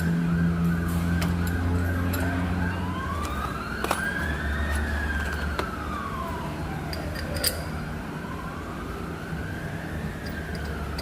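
Emergency vehicle siren: a quick yelp for the first few seconds, then a slow wail rising and falling twice, over a steady low hum and a few sharp clicks.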